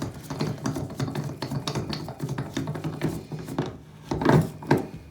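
Metal bathtub drain flange being hand-turned into the drain pipe threads with a drain tool: a continuous scraping and rubbing of metal on metal, with a few louder knocks near the end.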